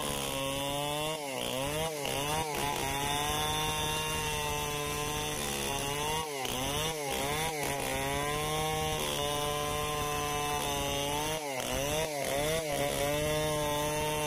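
Two-stroke chainsaw running at high revs, its pitch dipping sharply and recovering in short clusters of about three dips, roughly every five seconds.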